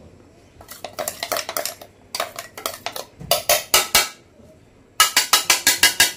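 A steel spoon tapping and scraping a stainless-steel mixer-grinder jar to knock out ground nut powder. The taps come in several quick runs, the last and loudest near the end.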